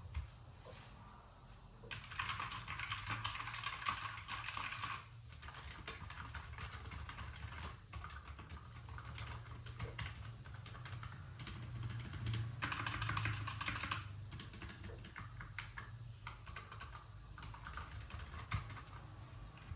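Typing on a NuPhy Air75 low-profile mechanical keyboard: rapid key clicks throughout, with two fast, dense runs of typing, one a couple of seconds in and one about two-thirds of the way through.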